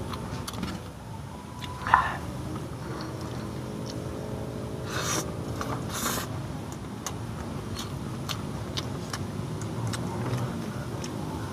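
Mouth sounds of a man eating rice with his hands: chewing, with short sharp smacks about two, five and six seconds in. Under them runs the low steady hum of an engine, with a faint pitched drone from about three to six seconds in.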